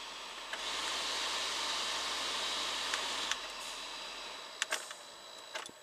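Newly replaced heater blower motor in a 1983 Volkswagen pickup switched on with a click about half a second in, blowing air with a steady whir for about three seconds, then switched off with a click and spinning down. A few sharp clicks of the switch and wiring being handled near the end.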